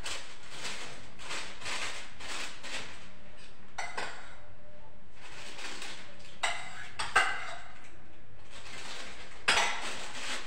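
A utensil scraping red and white icing out of a bowl into a piping bag in repeated strokes, with a few sharp clinks against the bowl in the second half.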